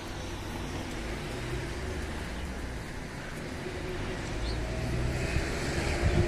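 Strong wind buffeting the microphone: a steady low rumble that gusts harder near the end.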